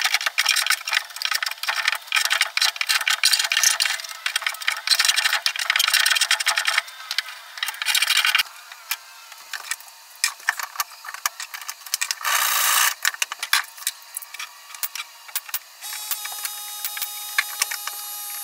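Woodworking on a plywood desk: a loud, dense stretch of scraping and clattering for about eight seconds, then scattered knocks with a short loud burst about twelve seconds in. Near the end a small motor hums steadily.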